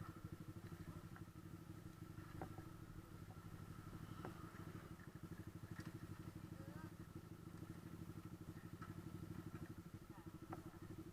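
Motorcycle engine idling steadily with a fast, even beat, with a few light clicks.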